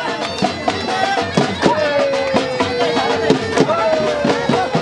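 Live Saraiki jhumar music: a dhol drum beating a steady rhythm under a reed pipe (been) that plays long held notes, sliding slowly down in pitch.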